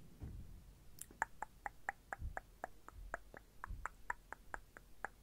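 A steady, even run of small sharp clicks, about four a second, starting about a second in, with a few soft low thumps among them.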